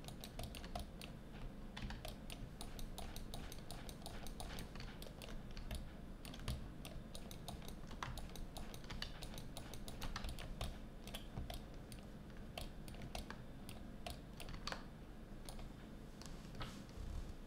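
Faint, irregular clicking and tapping of a computer keyboard, several clicks a second.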